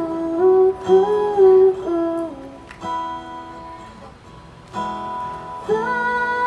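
Live pop song with acoustic guitar and a sung melody; it thins out briefly in the middle, then the guitar strums back in and the voice resumes near the end.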